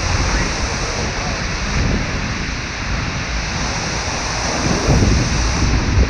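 Seljalandsfoss waterfall pouring into its plunge pool, a loud, steady rush of falling water heard from behind the falls, with wind buffeting the microphone in low gusts that swell near the end.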